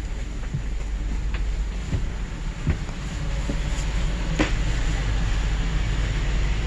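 Steady low hum inside a Trenitalia regional train coach, with a few light clicks and knocks.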